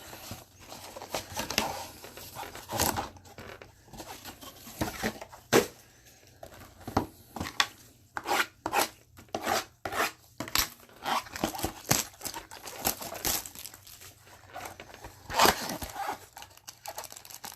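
Plastic shrink wrap being torn off a sealed box of baseball cards and crumpled, a run of irregular crackles, rips and rustles.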